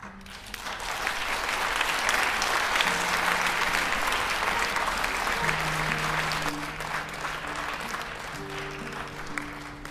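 Theatre audience applauding, swelling over the first second or two and fading over the last few seconds. Slow instrumental music with held notes comes in about three seconds in and continues under it.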